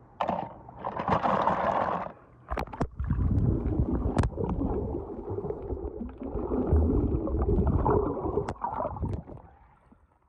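Shallow lake water sloshing and gurgling as a hand moves through it, with a few sharp clicks of plastic toy cars being handled.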